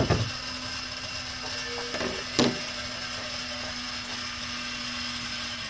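Cajun Bandit rotisserie motor turning the chicken spit with a steady hum, with a few sharp knocks near the start and about two seconds in. The hum cuts off at the very end, as the motor is switched off.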